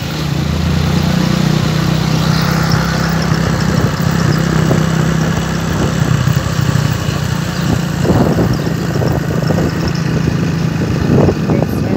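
A motor vehicle engine running with a steady low hum, over street noise, with a few short rattles about eight and eleven seconds in.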